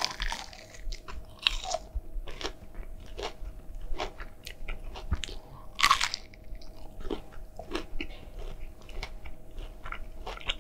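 Close-miked crunching and chewing of a breaded, fried nugget dipped in barbecue sauce. A crisp bite comes at the start, then repeated small crunches as it is chewed, with another loud crunch about six seconds in.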